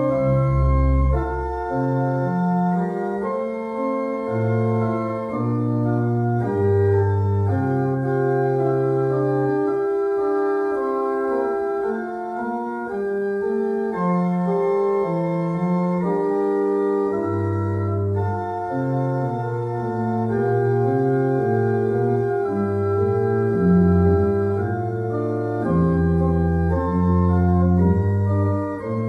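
Organ postlude in sustained, full chords, the bass notes changing about every second or two under held upper parts.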